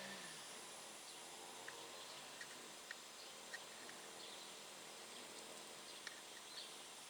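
Near silence: a faint steady hiss with a few tiny, quiet ticks scattered through it.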